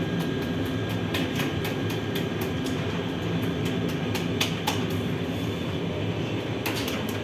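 Steady low drone of bakery machinery running nonstop, such as an oven burner or motor, with a few light taps and slaps as dough is stretched by hand on a long bread peel.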